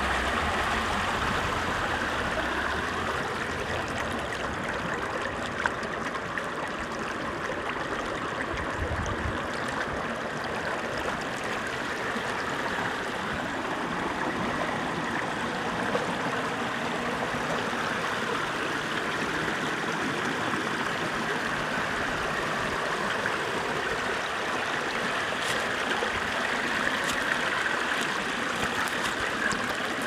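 Clear mountain stream flowing over rocks and small cascades: a steady, even splashing and trickling that never lets up.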